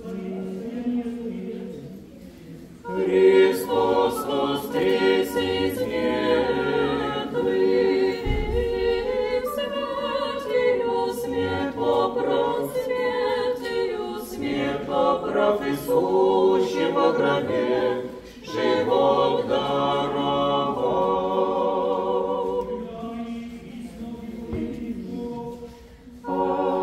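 An Orthodox church choir singing unaccompanied chant of the memorial service (panikhida), in long phrases with short breaks about 18 and 25 seconds in. Short sharp clicks sound over the first half.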